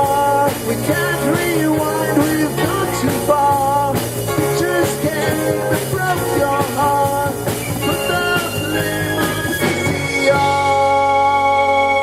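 Live rock band playing with singing and a drum beat; about ten seconds in the drums stop and the band holds a sustained final chord.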